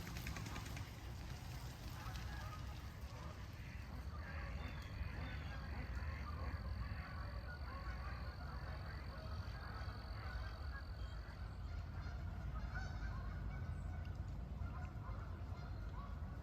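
A flock of geese honking repeatedly on and around the pond, over a steady low rumble.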